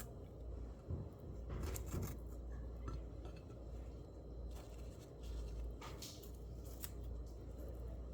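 Scattered small clicks and rustles of things being handled, over a steady low hum.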